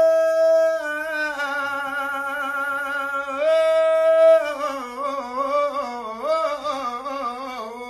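A man's voice singing a Sufi devotional chant solo, with no accompaniment. He holds a long high note, then a second one from about three and a half seconds in, and after that moves into a wavering, ornamented melody.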